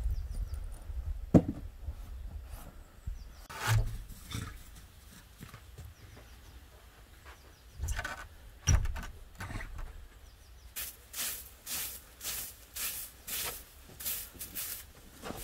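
Straw broom sweeping snow in quick rhythmic strokes, about two a second, starting about two-thirds of the way in. Before that, a few scattered knocks and thumps over a low rumble.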